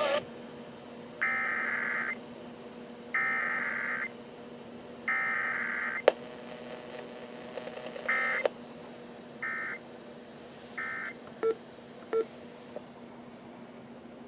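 Emergency Alert System SAME data bursts: three buzzy header bursts about a second long and a second apart, then three short end-of-message bursts with no attention tone between them, as sent for a Required Weekly Test. Two short lower beeps follow near the end, and a sharp click sounds about six seconds in.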